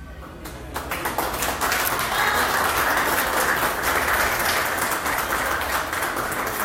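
Audience applauding: many hands clapping together, building about a second in and tapering off near the end.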